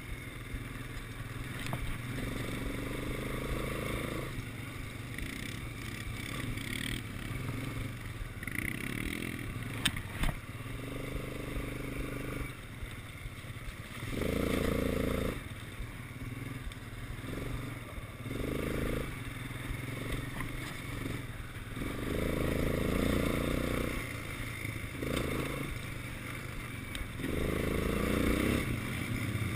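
Quad bike engine running under way, its note rising and falling in repeated surges every few seconds as the throttle is opened and eased. Two sharp knocks come about ten seconds in.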